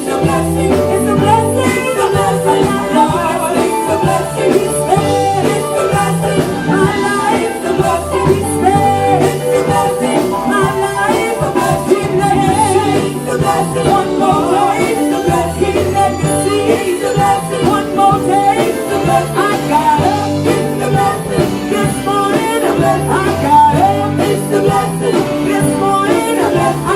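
Gospel music performance: singing over a band with bass and guitar, playing continuously.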